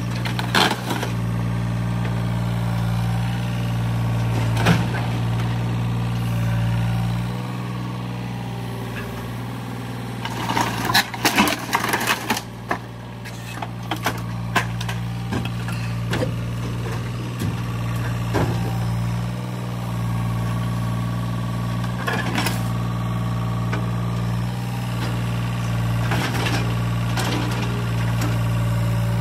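Yanmar mini excavator's diesel engine running steadily while the bucket breaks into an old wooden garage: scattered cracks and knocks of splintering boards and falling debris, with a burst of crashing about ten to twelve seconds in.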